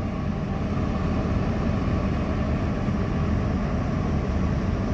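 Steady rumble of a car driving along a road: road and engine noise, even in level.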